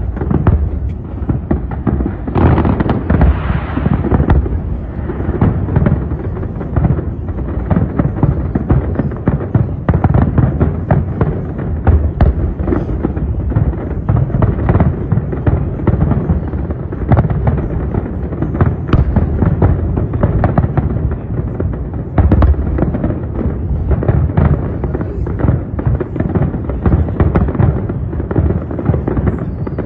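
Fireworks display going off continuously: a dense barrage of low booms from bursting aerial shells, with many sharp cracks and crackles on top, busiest a few seconds in.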